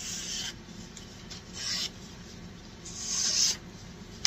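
The 420HC steel blade of a JXE JXO Cavalry knife slicing through sheets of printer paper in three strokes, each a short dry hiss, with a sharp click near the end. This is a paper-cutting test of the factory edge, which shows it is sharp.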